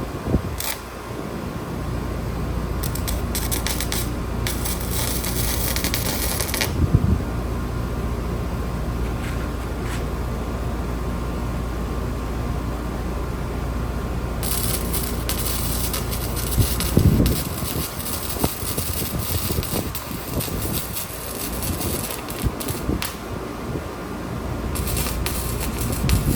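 S7 MIG 200 welder's arc crackling and sputtering in two runs: one of about four seconds, then a longer one of about ten seconds. A steady low hum runs under the first part and stops about two-thirds of the way through.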